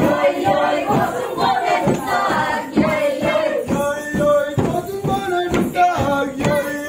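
A group of Adi festival participants chanting together in held, repeated notes, with a sharp beat about twice a second under the voices.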